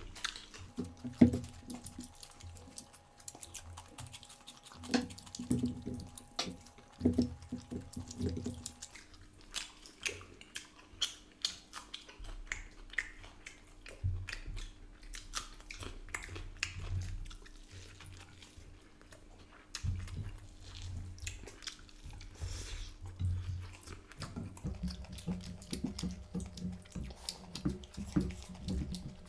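Close-up eating sounds from two people eating mutton curry and rice with their hands: wet chewing and lip smacking, irregular small clicks and squelches as fingers work rice into curry, and the chewing of mutton that has cooked tough.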